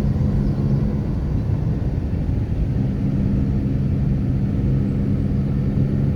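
Car engine running steadily at low speed, with a constant low hum over the rumble of the tyres on the road.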